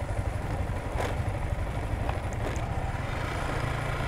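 Motorcycle engine running steadily while riding, with a sharp knock about a second in.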